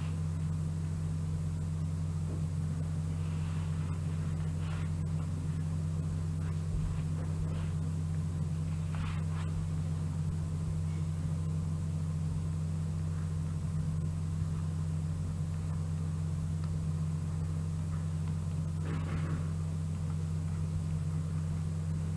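Steady low droning hum with a few faint, brief rustles.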